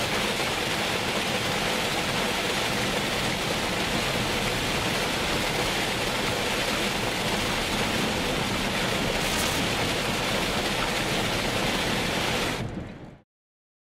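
Steady heavy rain on a car, heard from inside the moving car. It fades out quickly near the end.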